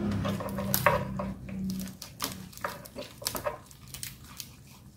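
A knife cuts through the crunchy deep-fried skin of a crispy pata (pork knuckle), making a run of short crackling crunches and clicks that thin out and fade toward the end. A low steady hum sits under the first two seconds.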